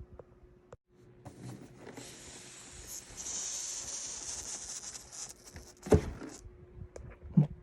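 Unboxing packaging being handled: a rustling hiss for a few seconds, then two sharp knocks near the end.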